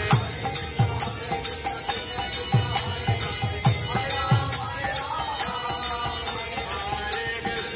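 Kirtan music: a group chanting together over a harmonium, with mridanga drum strokes and the bright clash of karatala hand cymbals keeping a steady beat, and some hand clapping.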